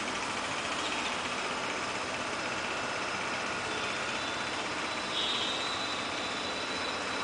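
Steady, even engine noise and hiss from a WDP-4 (EMD GT46PAC) diesel locomotive approaching in the distance. A faint high tone joins about five seconds in.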